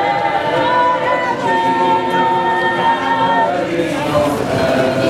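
A large chorus of drama students singing a cappella, several voices holding long sustained notes together.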